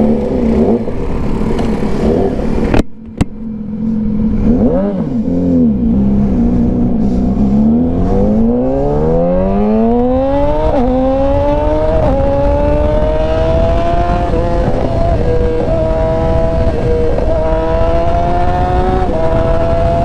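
2019 Yamaha R6's inline-four through an Austin Racing exhaust: a quick rev about five seconds in, then pulling away hard, the pitch climbing and dropping back at each of several upshifts.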